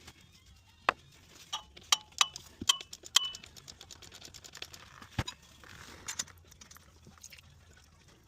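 Metal tools and parts clinking and tapping together: a run of sharp, briefly ringing clicks, most of them in the first three seconds, then a few more further on.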